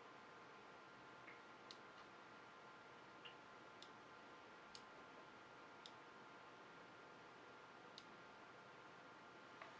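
Faint clicks from the left button of a Logitech G703 gaming mouse, the button its owner reports as faulty: about seven single clicks at uneven intervals.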